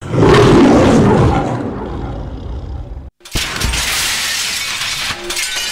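A loud, harsh roar-like noise that fades over about three seconds and breaks off abruptly. After a brief silence, a steady rushing noise follows.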